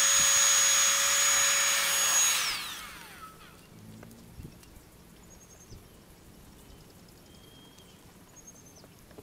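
Hot air gun blowing with a steady whine over rushing air, switched off about two and a half seconds in and winding down, its whine falling in pitch. After it, quiet with a few faint taps as a metal rod prods the heat-foamed toothpaste.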